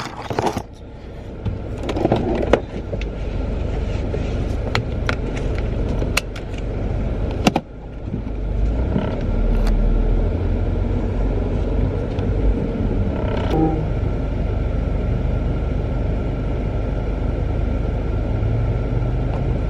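Car cabin noise while driving: steady low engine and road rumble, with a few scattered clicks and knocks in the first half. The rumble grows louder about eight seconds in and then holds steady.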